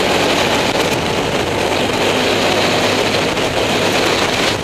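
ATV (quad bike) riding at speed on a gravel track: the engine running steadily under a dense, even rush of wind and tyre noise.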